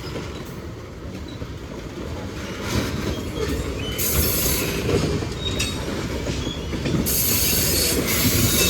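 Cars of a Union Pacific manifest freight train rolling past: a steady rumble of wheels on rail that grows louder. Short high wheel squeals break in, with bursts of high-pitched screeching about four seconds in and again near the end.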